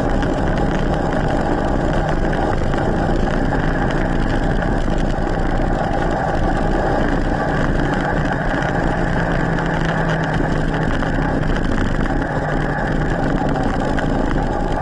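Electric mountain bike riding on tarmac with its motor in Turbo, the strongest assist mode: a steady mechanical drone of motor and rolling noise, with a faint hum running through it.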